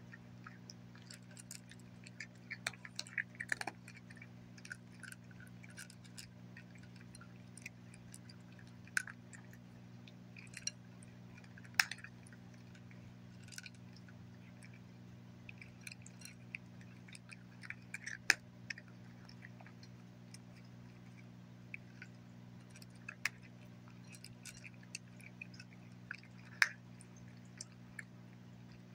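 A cat crunching dry kibble, with irregular crunches and sharp clicks, a few much louder than the rest, over a steady low hum.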